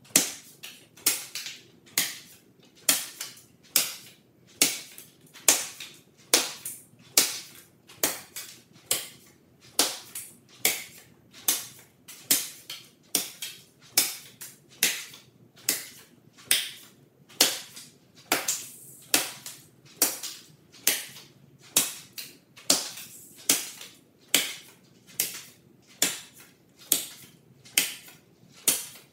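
Thrown playing cards striking foam targets on a wall, one after another: a sharp smack about once a second, often followed by a softer second tap.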